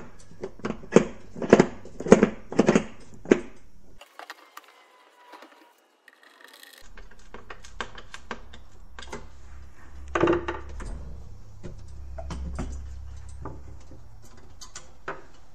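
Sharp clicks and knocks of a pinball drop-target assembly and a plastic part being handled and pressed together on a plywood board. After a brief silence comes a low hum with scattered knocks and handling noise.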